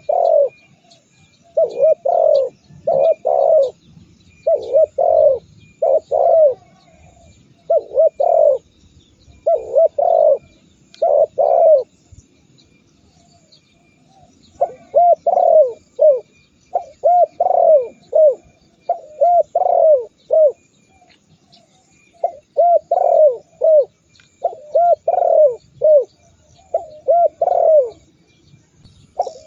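Spotted dove (tekukur) cooing over and over in short phrases of a few quick notes each, with one pause of a couple of seconds about halfway through. Faint high chirps of small birds sound behind it.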